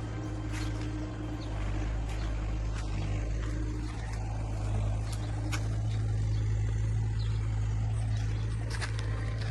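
Steady low mechanical hum with a few faint scattered clicks.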